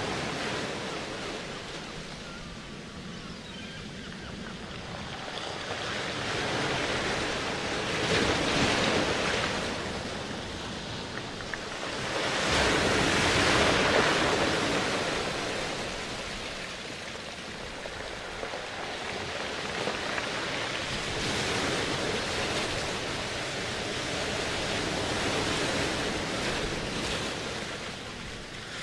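Ocean surf: a rushing wash of noise that swells and fades slowly, with two louder swells, the bigger one near the middle.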